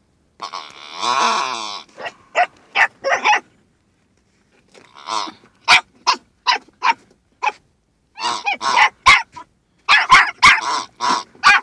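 A small scruffy dog barking in short, sharp yaps, in three quick flurries, after a longer drawn-out squeal about half a second in.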